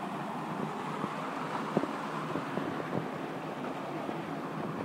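Floodwater gushing and splashing in a steady rush, with small splatters and one sharper click a little under two seconds in.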